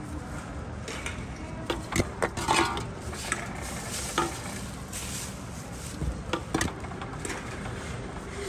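Tomra T-90 reverse vending machine running with a steady low hum, with a series of clicks and a clatter, loudest about two seconds in, as an aluminium can on its intake conveyor is carried into the machine.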